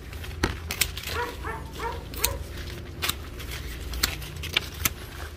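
A dog barking in a run of short yips, with several sharp clicks from hand pruning shears snipping branches.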